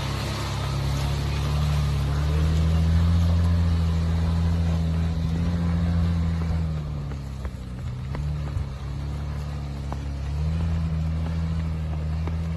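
An off-road SUV's engine working hard on a steep climb, its revs rising and falling several times as the driver works the throttle. It is loudest a few seconds in and eases off somewhat past the middle.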